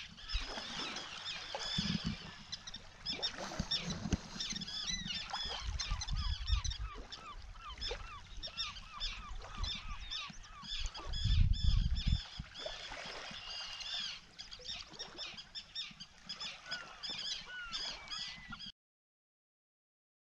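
A large colony of waterbirds calling continuously: many short, overlapping, high-pitched calls. Low rumbles come in a few times, most strongly about 11 to 12 seconds in, and the sound cuts off suddenly near the end.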